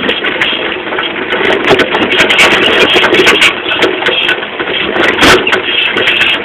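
Saltafoss moped being ridden over rough ground with Paioli hydraulic shocks: engine and rolling noise under a constant clatter of knocks and rattles from the chassis and suspension working over bumps, with a heavier knock about five seconds in.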